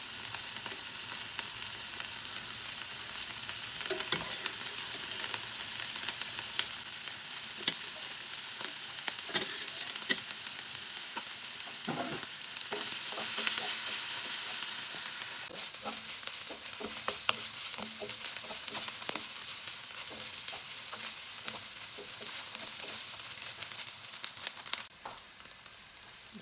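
Boiled pork pieces sizzling as they fry in oil with garlic and onion in a wok, stirred with a wooden spoon that knocks and scrapes against the pan in scattered clicks. The frying gets louder for a couple of seconds about halfway through and quietens near the end as the pork browns.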